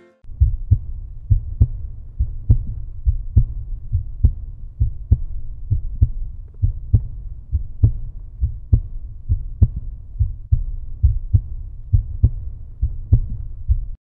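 Outro music: a bass-heavy beat of low thumps, a little over two a second, over a steady low bass line, stopping abruptly at the end.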